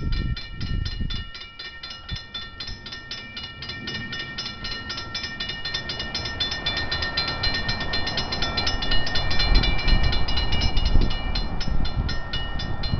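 Grade-crossing warning bell dinging rapidly and evenly, about four strikes a second, stopping near the end. Under it, the low rumble of an approaching GP40FH-2 diesel locomotive grows louder.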